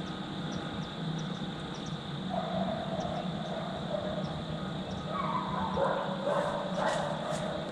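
Canines howling and yipping, several wavering calls that slide up and down in pitch. They start about two seconds in and build toward the end.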